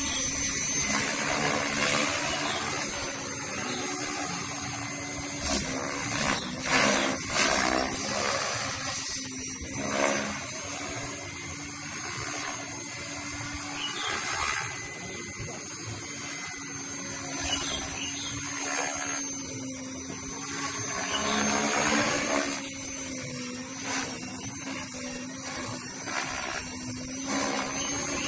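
KDS Agile 5.5 electric radio-controlled helicopter flying overhead: a steady high motor and rotor whine that bends up and down in pitch as it manoeuvres, with a few brief louder rushes between about six and ten seconds in.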